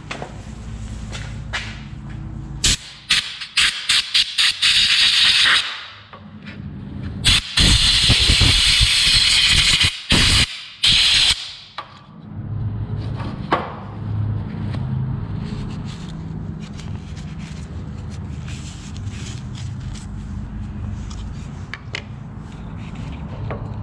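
Compressed air hissing from a blow gun, cleaning dirt out of an opened Milwaukee impact driver that would not change direction or torque setting. It comes as several short puffs, then a longer blast broken by a few brief stops, followed by quieter clicks of the plastic housing being handled.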